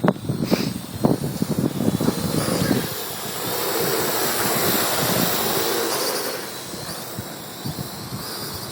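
Strong wind buffeting the microphone in irregular gusts, with a small quadcopter drone's propellers rising to a steady whining hiss for about three seconds in the middle, then fading.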